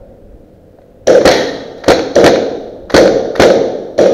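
Airsoft gun fired in quick single shots, about seven sharp cracks coming in loose pairs. Each crack echoes briefly in the bare room.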